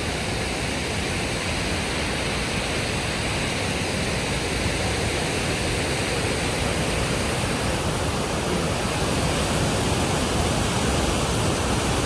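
Steady rushing roar of the Paterson Great Falls, the 77-foot waterfall on the Passaic River, heard close by; it grows a little louder near the end.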